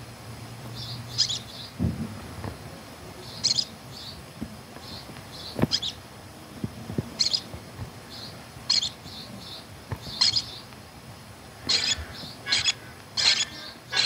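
Short high-pitched chirps in small clusters every second or two, coming thicker and louder near the end, over a faint low hum: a night-forest chirping sound effect.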